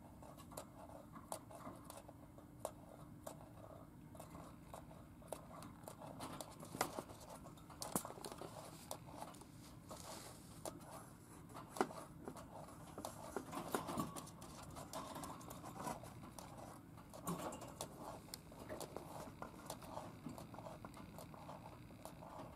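Budgerigar pecking and nibbling with its beak: a rapid, irregular run of small clicks and scratches, denser and sharper from about six seconds in.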